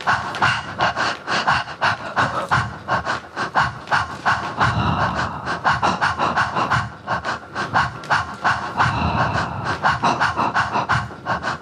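Rapid rhythmic panting breaths, about four or five a second, kept up steadily.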